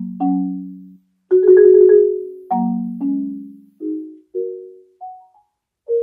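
Solo marimba: separate mallet-struck notes and two-note chords in the low and middle range, each ringing and fading, with a short rolled passage about a second and a half in and brief pauses between phrases.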